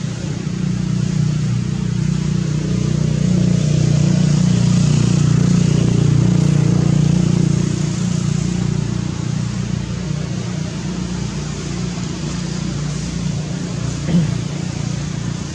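An engine running with a steady low drone, growing louder about three seconds in and easing off again around eight seconds.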